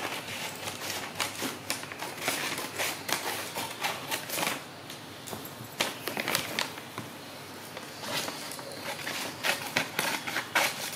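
Scissors snipping through a large sheet of pattern paper in a run of irregular cuts, with the paper crinkling and rustling as it is handled.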